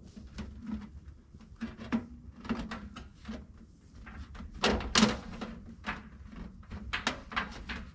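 Metal stovepipe sections being handled and fitted together at a joint: a run of short clanks, scrapes and knocks, loudest about five seconds in.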